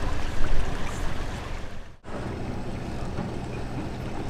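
Sailboat's diesel engine running while the boat moves under power, with wind rushing on the microphone and water noise. The sound drops out sharply about two seconds in and comes back as a steadier, quieter low engine hum.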